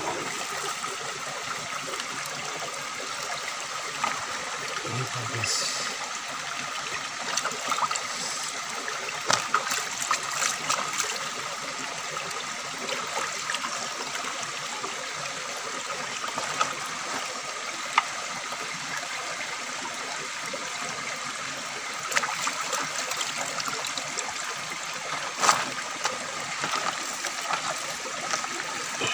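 River water flowing and trickling steadily, with scattered small clicks and splashes.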